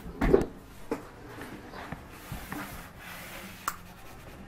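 Paper towel rubbing and wiping over a finished wooden surface, a low scratchy sound, with a bump just after the start and a sharp click late on.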